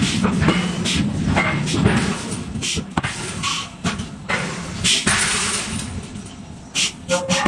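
Forging-shop din: a steady low machinery rumble with irregular sharp bangs and short bursts of hiss from the forging equipment.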